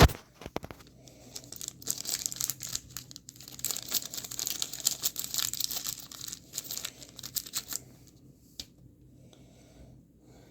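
Packaging crinkling and rustling as it is handled, starting with a sharp click and dying away near the end.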